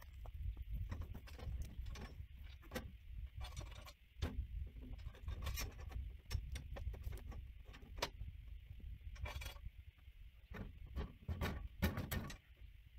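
Scattered knocks, clicks and rattles of sheep being handled at a wooden and metal handling chute, over a steady low rumble, with the loudest knocks coming close together near the end.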